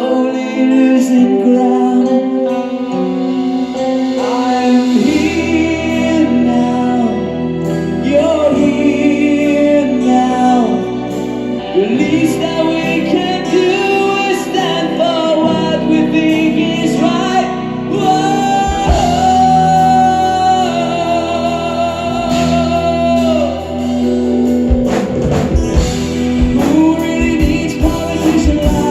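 A live progressive rock band playing a slow passage: sustained keyboard and guitar chords under a melodic lead line that bends in pitch and holds long notes, with drum hits coming in strongly about two-thirds of the way through.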